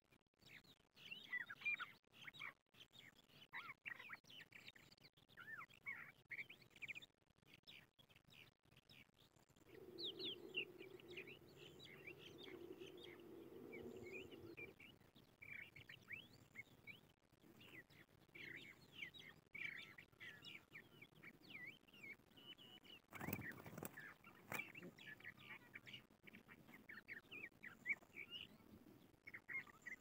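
Crested lark singing: a long run of quick, slurred, twittering notes, on and off throughout. A steady low hum runs for about five seconds about a third of the way in, and there is a brief rush of noise about three-quarters of the way through.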